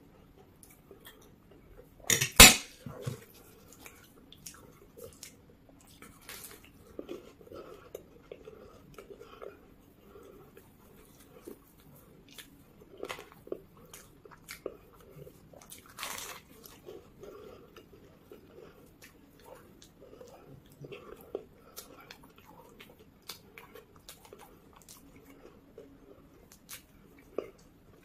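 Close-miked eating of a fried samosa: chewing and biting into the crisp pastry, with small wet mouth clicks and crackles and a few louder crunches. The loudest is a sharp sound about two seconds in.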